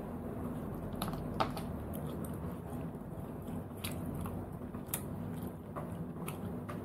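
Cooked snail shells clicking against each other and against a toothpick as they are picked at and picked up from a plate: about half a dozen scattered sharp clicks over a steady low hum.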